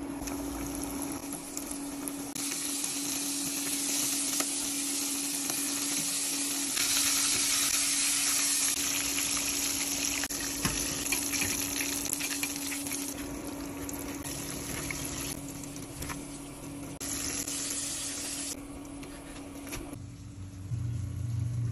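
Flour-breaded chicken pieces deep-frying in hot oil in a stainless steel pot, a steady crackling sizzle that jumps up and down in level at several cuts. A faint steady hum runs underneath. The sizzle stops near the end.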